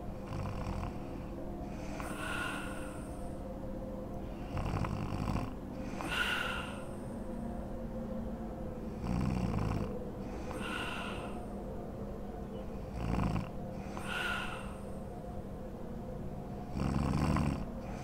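A sleeping woman snoring through an open mouth: a low rumbling snore followed about a second and a half later by a breathier, higher breath sound, repeating about every four seconds.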